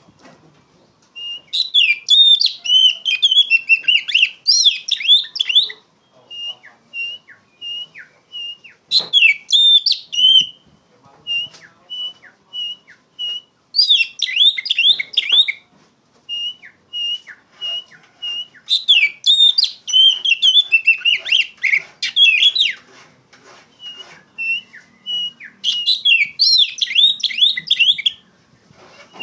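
Oriental magpie-robin in loud, continuous song: bouts of rich, varied warbling phrases a few seconds long, alternating with runs of short, even whistled notes repeated about twice a second.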